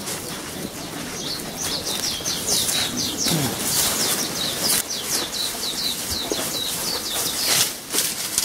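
A small bird singing a long, rapid run of repeated high, falling notes, over rustling and crunching steps through dry undergrowth, with one louder rustle near the end.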